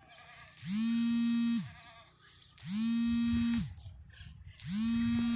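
A flat electric buzzing tone sounds three times, each about a second long and two seconds apart. Each one swoops up as it starts and drops away as it stops.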